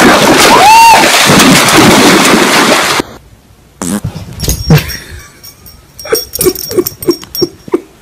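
A dog splashing through shallow lake water, loud and noisy, with a brief high cry about a second in. About three seconds in it cuts off suddenly; after a few knocks comes a run of short repeated vocal sounds, about four a second.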